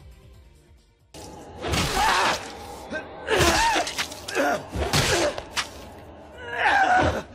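An anime character's loud, strained screams in several bursts, the pitch bending up and down, starting about a second in, with a sharp crash between them.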